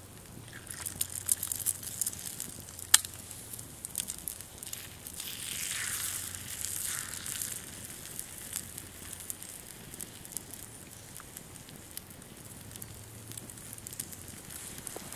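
Small wood fire crackling and popping in a Dakota fire pit, with a sharp pop about three seconds in and a brief hissing stretch around six seconds.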